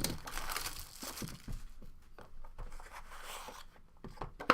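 Plastic wrapping being torn off a sealed trading card box and crinkled, with a sharp click near the end.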